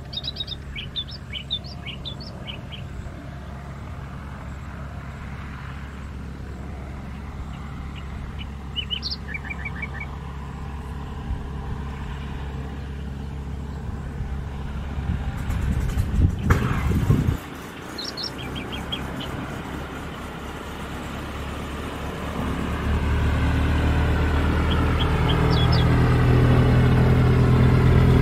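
A light aircraft's piston engine hums in the distance and grows steadily louder in the second half as it comes closer, while small birds chirp in short bursts. A loud rushing noise lasts about two seconds in the middle and cuts off suddenly.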